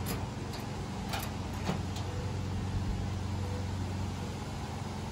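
A steady low machine hum, with a few light clicks in the first two seconds as the metal cabinet doors of a gas grill are handled.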